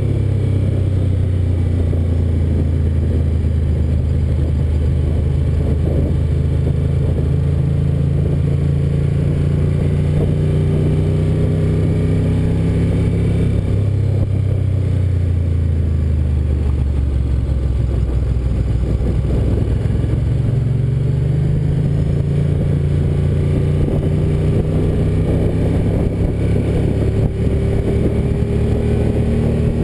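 Ducati 900FE's air-cooled V-twin engine running on the move. Its note falls slowly over the first two-thirds as the bike eases off, then climbs again from about two-thirds in as it picks up speed.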